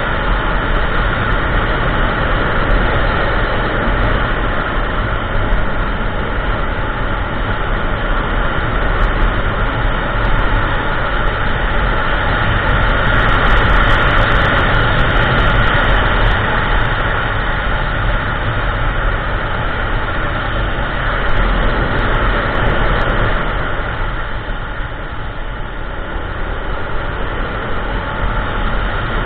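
Kymco Xciting 400i scooter underway at road speed: a steady engine drone mixed with wind rush and tyre noise. It eases off for a few seconds near the end.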